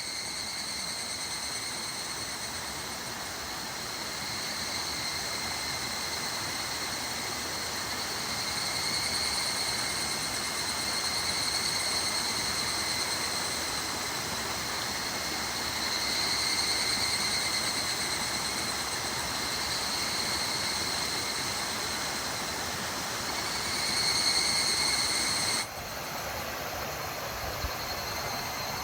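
Mountain stream rushing steadily, with a chorus of higurashi evening cicadas (Tanna japonensis) calling high-pitched over it, their calls swelling and fading in waves every few seconds. About 26 s in the sound drops suddenly to a quieter stream with the cicadas fainter.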